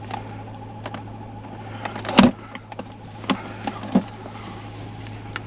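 Scattered clicks and knocks from an old OTC handheld scan tool being handled and its cable plugged into a car's OBD2 port, with the loudest knock about two seconds in. A steady low hum runs underneath.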